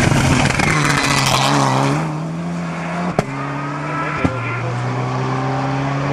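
Mitsubishi Lancer Evolution rally car passing close at speed, then its engine note drawing away. About three and four seconds in there are two sharp bangs, and the engine pitch steps down at each one.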